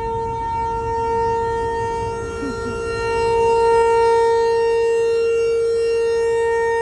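Outdoor tornado warning siren sounding during a scheduled test: one long, steady held tone with strong overtones that gets louder about three seconds in.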